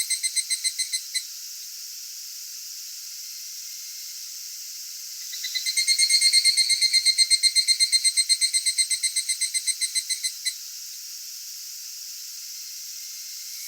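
Higurashi (evening cicada) calling its rapid pulsed 'kana-kana-kana' song: one phrase ends about a second in, and another swells up about five seconds in, pulsing about seven times a second before it slows, fades and stops. A steady high hiss of other insects runs underneath.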